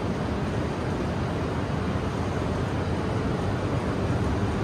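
Steady rumble of shinkansen trains at the platform as an E3 series train creeps up to couple onto the nose of a standing E2 series train.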